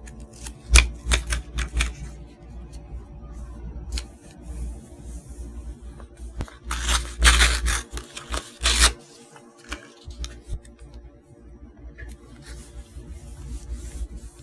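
Paper handling on a notebook page: a quick run of sharp taps from metal tweezers on paper about a second in, then a loud rustle of a loose printed book page being handled from about six and a half to nine seconds, and soft rubbing of fingers smoothing paper near the end. Faint piano music underneath.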